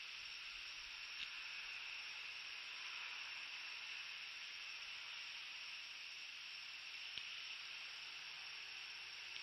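Steady high hiss, with two faint clicks, one about a second in and one about seven seconds in.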